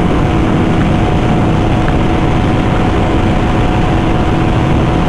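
Motorcycle engine holding a steady high-speed drone in sixth gear at about 165 km/h, its pitch unchanging, under heavy wind rush on the helmet-mounted microphone.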